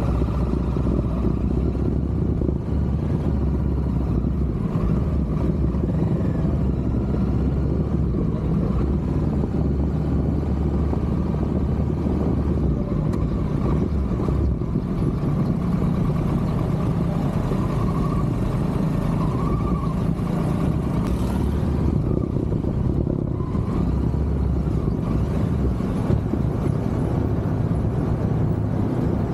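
Kawasaki Versys 650's parallel-twin engine running steadily, a continuous low sound without revving.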